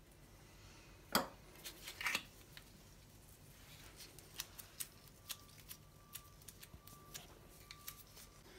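Quiet kitchen handling of mochi dough: a sharp knock about a second in and a couple more just after two seconds, then a run of small soft clicks as latex-gloved hands fold and pinch the sticky dough closed around its filling.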